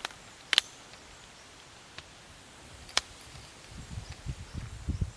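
Wind blowing through forest trees, leaves rustling, with a few sharp clicks and a low gusty rumble in the last couple of seconds.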